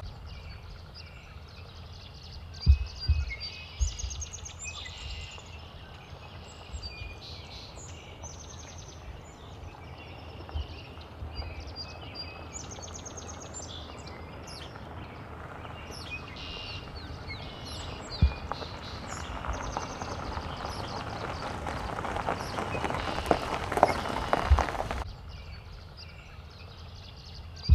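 Small birds chirping and twittering over a steady outdoor hiss, with a few low thumps. The hiss swells and then drops away suddenly near the end.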